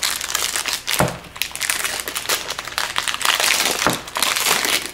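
A 2012 Topps Tribute baseball card pack's wrapper being torn open and crinkled by hand, with a knock about a second in.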